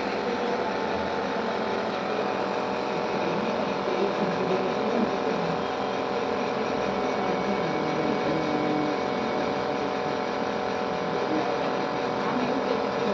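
Electric nebulizer compressor running with a steady, even mechanical hum.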